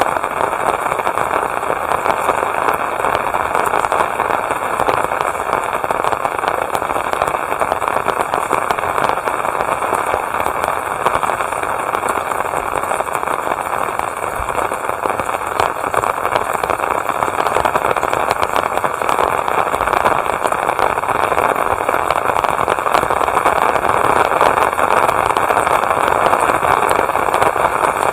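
Steady rain falling, a dense even patter that swells slightly in the last several seconds.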